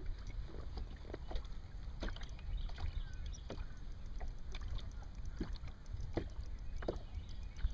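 Small waves slapping against a fishing boat's hull: irregular soft knocks over a steady low rumble of wind on the microphone.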